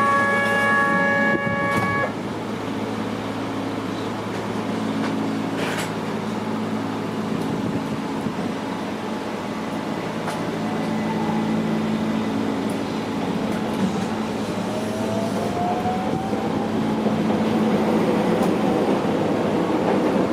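Keihan 800 series electric train pulling away and gathering speed, heard from inside the driver's cab: low steady motor and running hum, with a rising whine about two thirds of the way through. A steady pitched tone sounds during the first two seconds.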